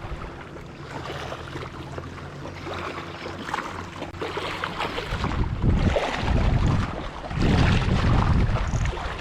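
Wind gusting against the microphone, loudest in two long rumbling gusts in the second half, over a steady low hum in the first half.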